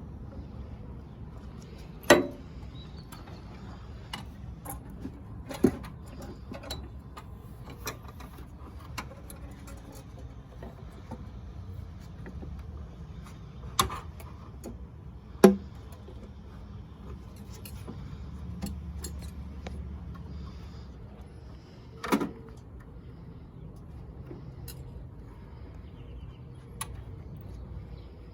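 Scattered clinks and knocks of hand tools and parts being worked into a car's engine bay, with about five louder sharp knocks spread through, over a low steady background hum.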